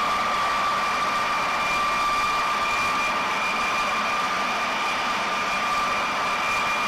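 Jet engines running steadily: a constant whine over a broad rushing noise, with no change in pitch or level.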